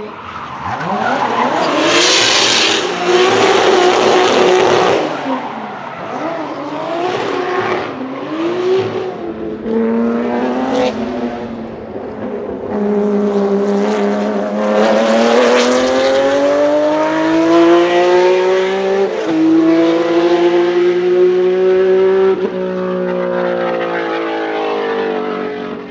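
High-performance car engine being driven hard. First a loud burst of high revs, then several short rises and falls in pitch, then revs climbing steadily with two sudden drops at upshifts in the last third before the sound fades.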